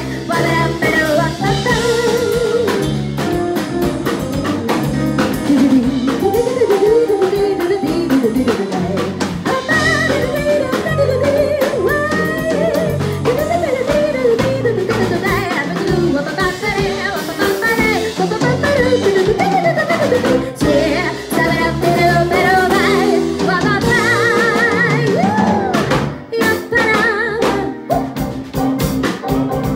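A live jazz band: female vocalist singing over electric keyboard, bass guitar, electric guitar and drum kit. Near the end she holds a note with wide vibrato.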